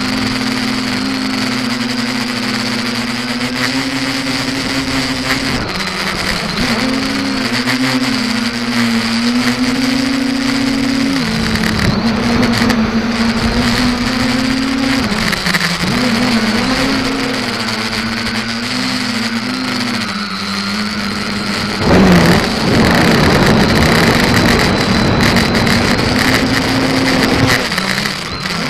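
SK450 quadcopter's electric motors and propellers in flight, heard from the onboard camera: a steady hum whose pitch drops and rises every few seconds with throttle changes during flips and rolls, over rushing air noise. About three-quarters of the way through the rush of air gets suddenly louder and stays up.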